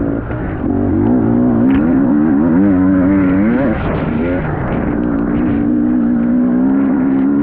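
Motocross dirt bike engine revving, its pitch rising and falling with the throttle, then holding a steady note for the last few seconds.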